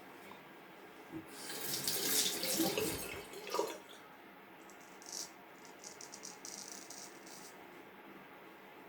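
Water running from a tap into a sink for about two seconds, followed by a few fainter short splashes.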